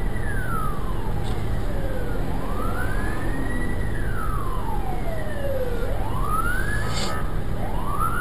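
Emergency vehicle siren in a slow wail, rising and falling about every three and a half seconds, over a steady low rumble of traffic. There is a short sharp click about seven seconds in.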